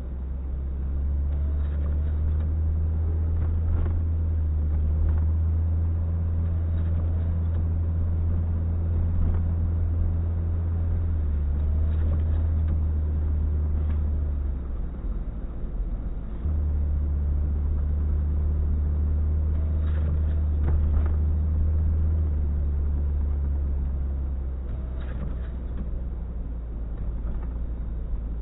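Steady low rumble of a motor vehicle running. It eases off for about two seconds midway and then returns, with a few faint clicks over it.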